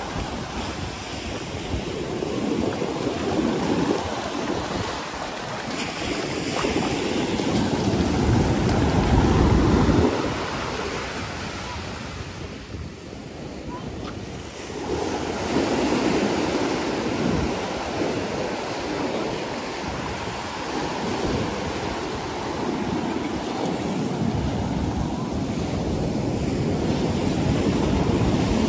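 Ocean surf breaking and washing up the beach, swelling and easing in turn; the loudest wave comes just before ten seconds in and drops away sharply.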